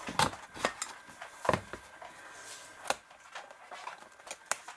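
Paper rustling with a handful of sharp clicks and knocks as a scrapbook page is handled and fitted onto the metal rings of a ring-binder album.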